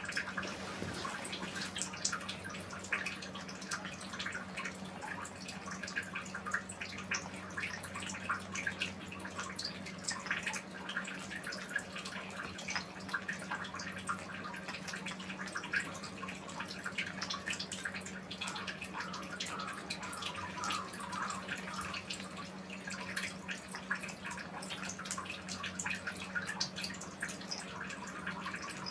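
Four kittens eating wet cat food from bowls: a continuous wet patter of chewing, licking and smacking, many small clicks overlapping. A steady low hum runs underneath.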